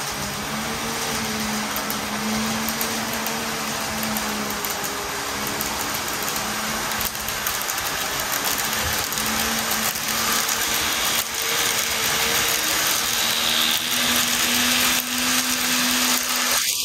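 KATO N-gauge 383 series 'Shinano' model train, a heavy formation with two motor cars, running on the track: a steady motor whine with a few sharp clicks of the wheels over rail joints and the turnout, growing louder toward the end as it comes nearer. It passes through the turnout smoothly without derailing.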